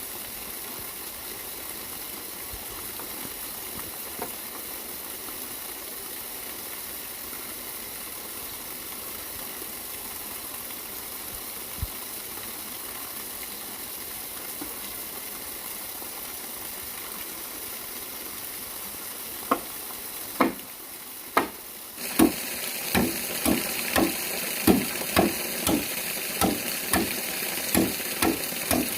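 Steady hiss of water running and splashing. About twenty seconds in, a run of sharp, evenly paced strikes begins, roughly two a second, like a tool hitting repeatedly.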